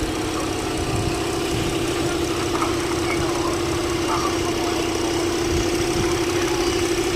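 Chevrolet engine idling with a misfire: a steady running tone over a low, uneven rumble.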